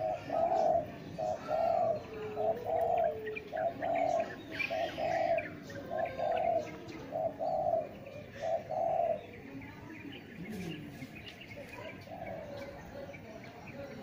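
Spotted dove cooing: a run of about nine short, low coos, roughly one a second, that stops about nine seconds in.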